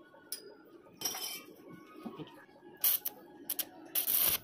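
Stainless steel handrail tube clinking and knocking against a stainless newel post as it is set in place for welding: a few short sharp metallic knocks, then a louder, longer burst of sharp noise near the end.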